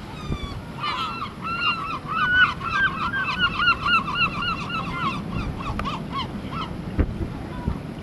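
Fighting gulls calling in a fast run of repeated yelping notes, about five a second, starting about a second in and tailing off before the end, over low wind noise.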